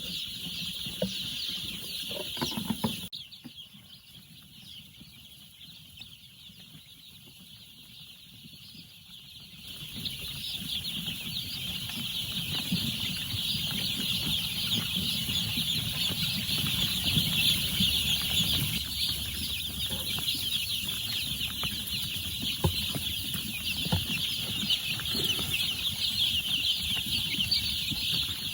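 A flock of chickens calling together: a dense, high-pitched chorus of many overlapping calls, with lower clucks beneath. It drops to a much quieter level about three seconds in and swells back up a few seconds later.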